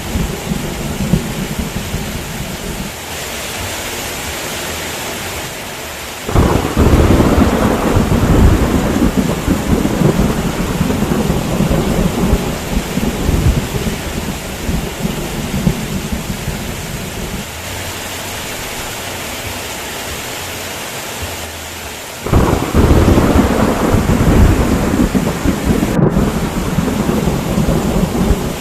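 Steady heavy rain with rolling thunder. A deep rumble breaks in suddenly about six seconds in and rolls on for many seconds, and a second one starts suddenly about twenty-two seconds in.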